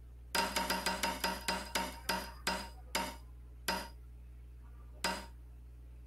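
Ticking sound effect of an on-screen spin-the-wheel game as the wheel turns: rapid clicks that slow down and space out as the wheel comes to a stop, the last two far apart.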